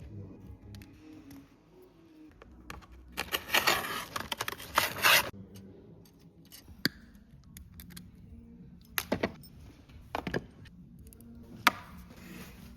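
Hand tools and small metal parts handled at a workbench: about two seconds of scraping and rubbing a few seconds in, then several separate sharp clicks and knocks.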